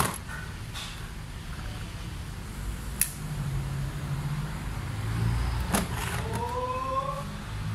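A couple of sharp metal clicks as a diesel injection pump is handled on a steel workbench, over a steady low rumble. Near the end a rising whine comes in.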